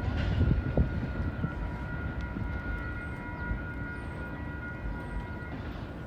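Freight train rolling past: a steady low rumble of railcars with a thin, steady whine over it, easing off near the end.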